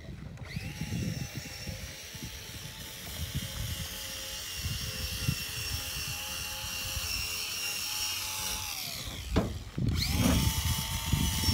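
A small electric motor, such as a cordless drill or a camper's powered jack, running with a steady whine, winding down and stopping about nine seconds in and starting up again a second later. Footsteps crunch on gravel underneath.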